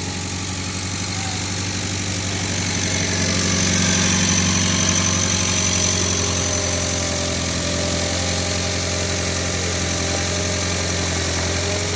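An old forklift's engine running steadily at low speed as the machine creeps along carrying the heavy signal box. It grows louder about three seconds in, with a thin high whine added, then eases back a little and holds steady.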